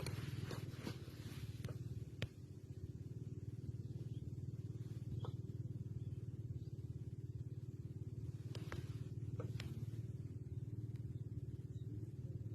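Small boat engine running steadily with a low, fast-pulsing hum, with a few light clicks over it.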